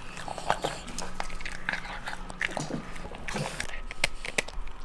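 A dog eating, close up: irregular wet smacking and crunching as it eats soft food from a bowl, then gnawing on a chew stick near the end.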